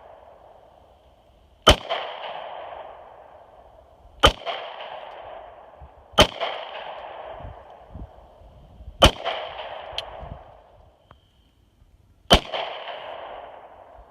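Glock 43 9mm pistol fired five times at an unhurried pace, each shot two to three seconds apart. Right after most shots there is a hit and a ringing tone from a steel gong target being struck.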